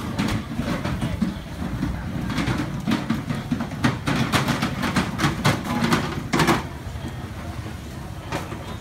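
Street-side ambience: a steady low traffic rumble with faint background voices, and a run of sharp clicks and clatter through the middle that dies down near the end.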